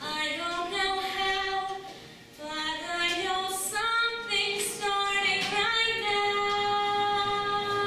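A female solo voice singing a slow ballad, moving between sustained notes, with one long held note over the last couple of seconds.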